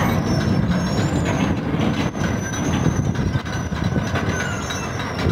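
Steel cargo-hold hatch covers rolling along their rails: a steady heavy rumble with clanks and the high, thin squeal of metal wheels on the track.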